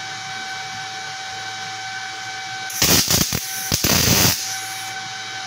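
MIG/MAG welding arc on steel plate, 0.9 mm wire at about 130 A and 18.3 V, struck for tack welds: a loud hissing crackle that starts about three seconds in and comes as three short bursts with brief gaps, lasting about a second and a half in all. Under it a steady background hum with faint steady tones.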